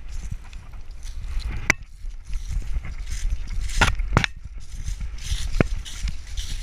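A beagle moving through dry grass and leaves, heard from a camera on her chest harness: a steady low rumble of footfalls and body movement against the mount, a rustle of grass, and a few sharp clicks.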